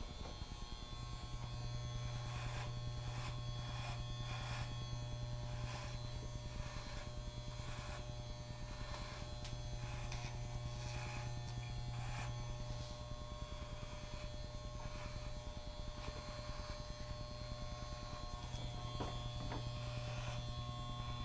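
Electric hair clippers running with a low, steady buzz as they shave a head down to the scalp, with short irregular scratchy sounds over the hum.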